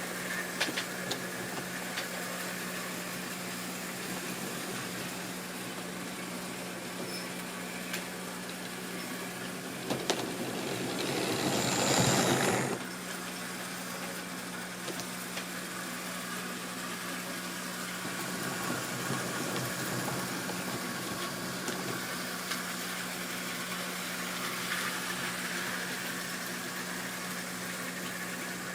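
Model railway train running on its track: a steady electric-motor hum with scattered light clicks from the wheels, swelling to a louder rush about ten seconds in that drops back suddenly a couple of seconds later.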